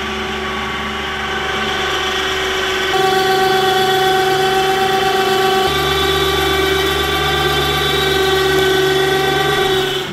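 Tailgate winch motor running steadily, paying out its line as the trailer's rear ramp door lowers, then cutting off near the end.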